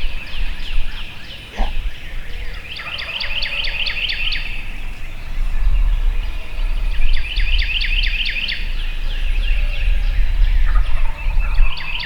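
Wild turkeys gobbling: three rattling gobbles about four seconds apart, each a quick run of notes.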